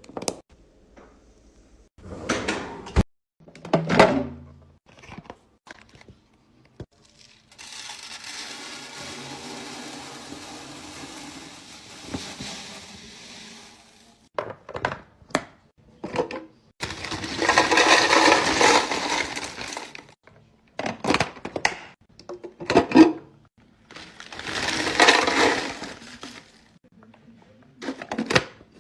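Food containers and packaging being handled while a fridge is restocked: a string of sharp clicks and knocks, a steady hiss lasting several seconds, and two louder rushing stretches later on.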